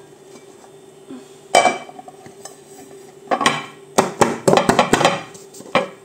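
Dishes and metal utensils clattering and clinking: one sharp knock about a second and a half in, then a quick run of clinks and knocks in the second half.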